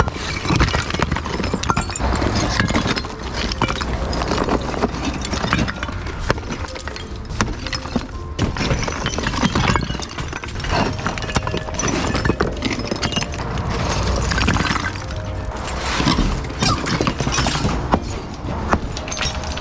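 Demolition work: repeated knocks and impacts with breaking, shattering debris, over background music.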